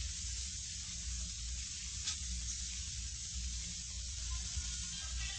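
Steady hiss over a low electrical hum, the background noise of an old recording with no music playing, with one faint click about two seconds in.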